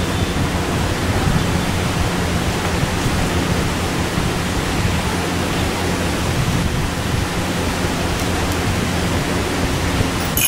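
Steady background hiss with a faint low hum underneath, unchanging throughout, ending in a sharp click.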